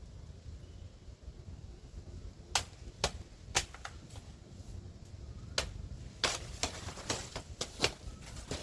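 A blade chopping into a banana plant's stalk: about ten sharp strokes at an uneven pace, coming faster in the last few seconds, over a low steady rumble.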